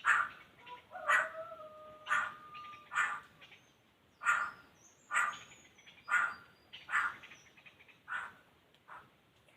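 Laughingthrush calling: a run of short calls about once a second, with thin steady whistled notes held for a second or two early on.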